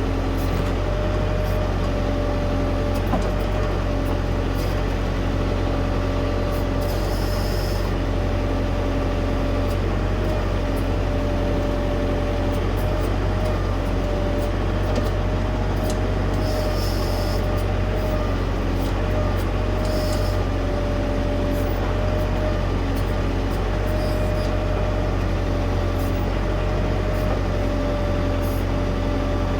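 Tractor diesel engine running steadily under hydraulic work, a low drone with a steady whine above it.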